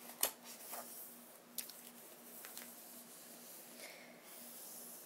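A hardback book's paper pages being handled: a sharp tap just after the start, a few lighter clicks, then a soft brushing sound near the end.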